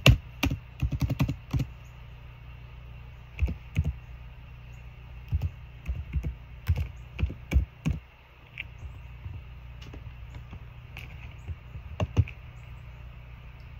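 Typing: irregular bursts of short, light clicks with pauses between them, over a steady low hum.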